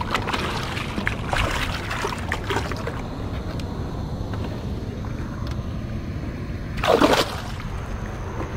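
A hooked fish splashing at the water's surface beside the rocky bank for the first three seconds or so, as it is played in on the line. Then calmer, with one short loud rush of noise about seven seconds in.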